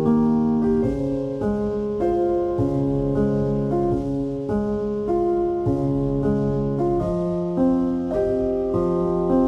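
Background piano music: an even run of held notes and chords, with a new one starting roughly every half second.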